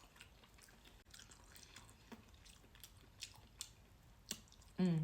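Close-miked chewing of canned hearts of palm: faint, with scattered mouth clicks and smacks, a few of them louder in the second half. A short hum of voice near the end.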